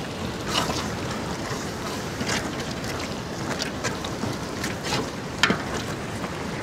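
A long perforated metal ladle stirring and scraping against a large aluminium pot of steaming biryani masala gravy, in a scatter of short scrapes and knocks. Under it, a steady hiss of wind on the microphone.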